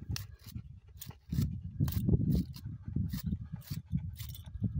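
A grooming comb pulled in quick, short strokes through an English shepherd's thick coat, about a dozen brushing scrapes, over a low, uneven rumble.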